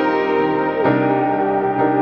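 Background music: a soft electric piano playing sustained chords, a new chord struck about once a second.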